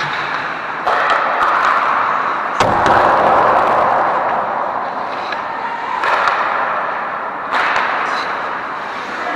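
Ice hockey game play: a continuous rush of rink noise broken by four sudden scraping bursts, each beginning with a sharp knock and fading over a second or so.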